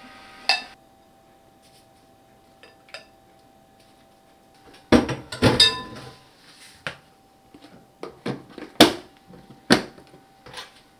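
A plastic airtight food container being handled on a wooden cutting board: a knock about half a second in, a cluster of heavier knocks around the middle, then a run of sharp plastic clicks near the end as the snap-lock lid is pressed on and its locking tabs are fastened.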